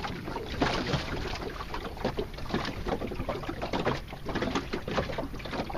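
Water splashing and lapping against the hull of a small wooden sailboat under sail, in quick irregular slaps over a steady low rumble.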